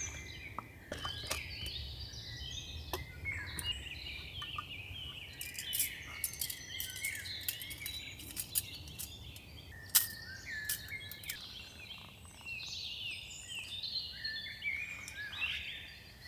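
Wild birds chirping and calling, many short quick chirps overlapping, over a low steady background noise. A few sharp clicks or knocks come in a cluster around the middle, with a single louder one about ten seconds in.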